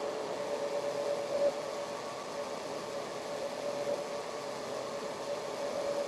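Metal lathe running steadily while a two-wheel knurling tool rolls a diamond knurl into a spinning brass knob: an even mechanical hum holding one pitch over a steady hiss.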